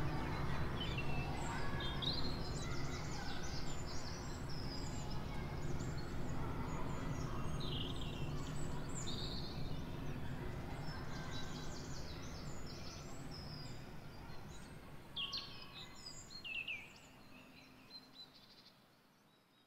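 Birds chirping in short, scattered calls over a low, steady outdoor hum, the whole fading gradually away to silence near the end.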